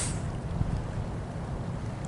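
Wind buffeting the microphone outdoors: a steady low rumble with a faint hiss over it, and a brief sharper hiss right at the start.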